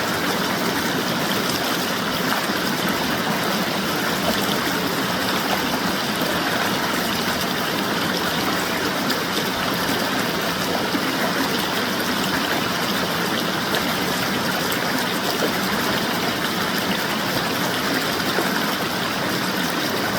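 Waterfall water falling and rushing in a steady, unbroken hiss.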